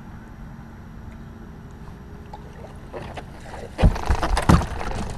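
A low steady hum, then from about four seconds in a run of loud thumps and knocks with splashy noise, as anglers shift about on a bass boat's deck to land a fish.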